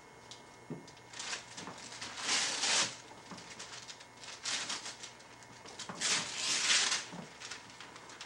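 Gift wrapping and tissue paper tearing and crinkling in several bursts of about a second each as a present is unwrapped.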